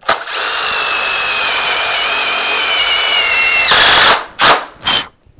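Power drill driving a self-tapping screw: a steady, loud motor whine that slowly drops in pitch as the screw takes up load, cutting off about four seconds in. Two short bursts of the drill follow.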